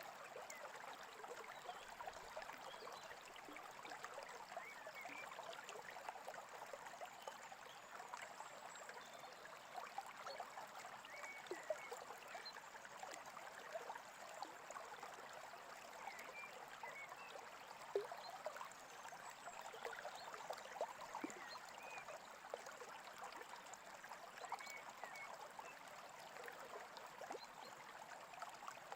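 Small brook babbling and trickling steadily and faintly, with little gurgles.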